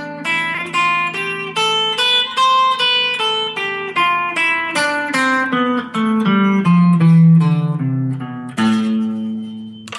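Guitar playing the natural minor (Aeolian) scale one note at a time, climbing up and then stepping back down, ending on a held low note near the end.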